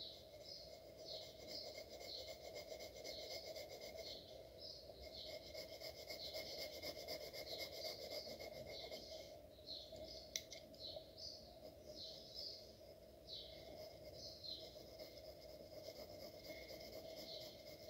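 Graphite pencil shading on drawing paper: short repeated scratching strokes, one or two a second, over a steady low hum, with a single sharp click about ten seconds in.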